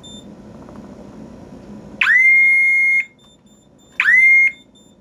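Ademco Wave 2 alarm siren on its steady tone, very loud, sounding in two short blasts about two seconds apart. Each sweeps quickly up to a steady high tone: the first holds about a second, the second about half a second, and each cuts off suddenly.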